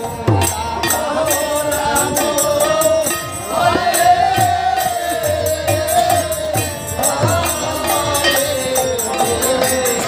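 Bengali devotional kirtan: a group of men chanting in unison to a khol barrel drum beating a steady rhythm, with harmonium and hand clapping.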